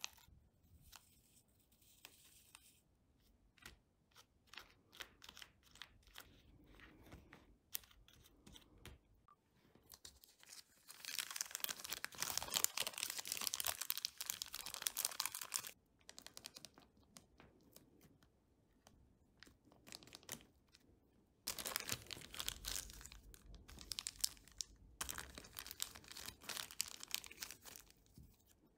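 Scissors snip a plastic sauce sachet, then a small clear plastic bag crinkles and rustles as fingers work it, in two long stretches of dense crinkling, with scattered soft clicks and taps before them.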